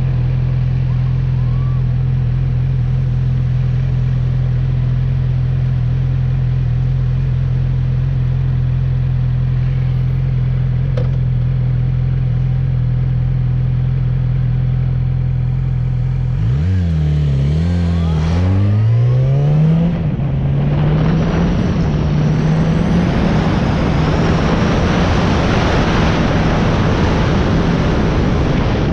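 Sport motorcycle engine idling steadily, then a little past halfway it pulls away, revving up with the pitch climbing and dropping through a couple of gear changes. Wind rushing over the microphone rises once it is under way.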